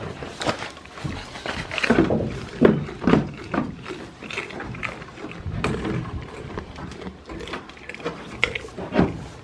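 Goats jostling at a wooden pen: irregular knocks and bumps on the boards, with a few short goat calls falling in pitch about two to three seconds in.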